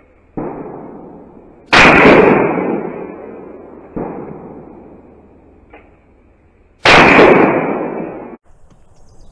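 Two loud shotgun blasts about five seconds apart, each ringing out for over a second, fired at flying clay targets. Two fainter bangs come before them, one just after the start and one about four seconds in.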